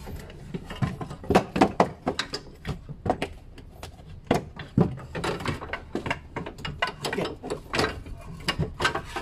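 Front shock absorber strut and coil spring being worked out of the wheel arch by hand: a string of irregular metallic clicks, knocks and scrapes.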